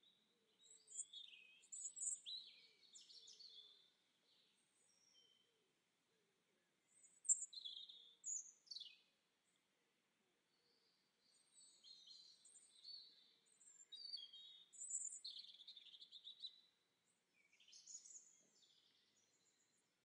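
Small garden songbirds chirping and twittering, faint, in three bouts of quick high calls with short quiet gaps between.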